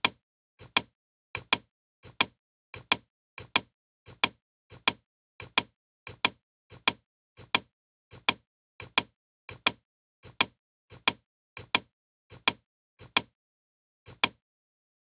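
Computer mouse button clicking, each click a quick press-and-release pair, about three clicks every two seconds as rows are selected one after another, with a longer pause near the end.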